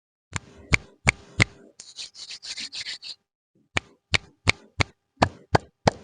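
Sharp, hard taps or clicks, like hard objects knocking on plastic: four at first, then a crinkling rustle like a wrapper for about a second and a half, then a steady run of taps about three a second.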